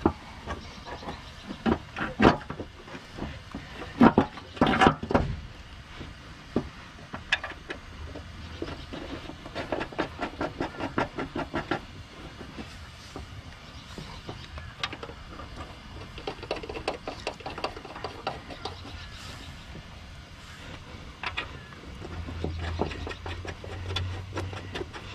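Steel mounting bolts clinking against a new blade spindle housing and the steel mower deck as they are fitted and threaded in by hand: a few sharp knocks in the first five seconds, then runs of light rapid clicking. A faint low hum comes in near the end.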